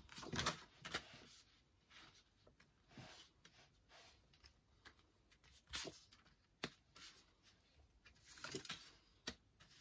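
A deck of tarot cards being shuffled in the hands and cards laid down on a spread on the table: faint, scattered short rustles and flicks, the loudest about half a second in, near the middle and a little before the end.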